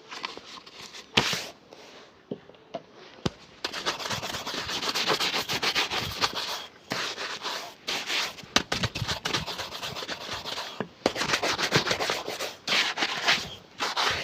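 Fast rubbing strokes on a shoe during a shoe shine, coming in runs of a few seconds with short breaks between them. A sharp knock about a second in and another about two seconds later come before the rubbing starts in earnest.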